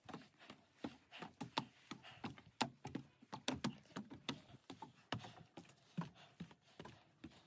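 Footsteps climbing wooden deck stairs, shoes knocking on the wooden treads in an uneven series of about two to three knocks a second.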